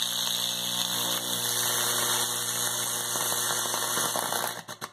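High-voltage microwave oven transformer humming steadily under load while its current arcs and sizzles through a potato at the wire electrodes. It cuts off with a few crackles near the end as the power is switched off.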